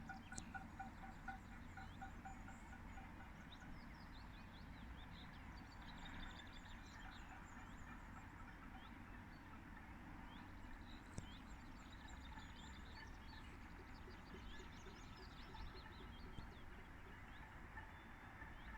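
Faint, distant mix of a town clapping, banging pots and pans and whistling in the estates below, over a low steady rumble of wind on the microphone. A rapidly pulsing tone sounds in the first few seconds, then stops.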